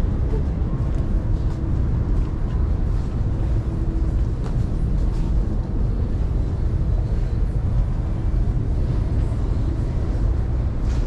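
Steady background rumble of a busy railway station concourse, with faint scattered clicks throughout.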